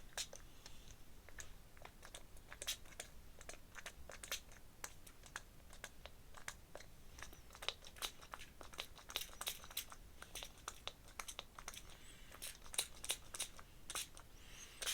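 Watercolour brush dabbing and scratching colour onto textured paper: faint, irregular dry ticks and scrapes, thicker in the second half.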